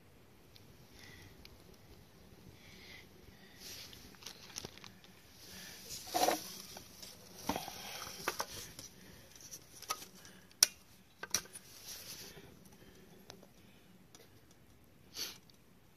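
Handling noises as a new chainsaw and its packaging are shown: rustling with scattered clicks and knocks, the loudest clatter about six seconds in and a sharp click about four seconds later.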